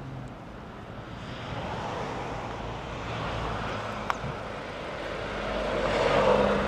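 Road traffic passing the lay-by: a vehicle's rushing noise swells as it approaches, loudest about six seconds in, over a low engine hum, with a single sharp click about four seconds in.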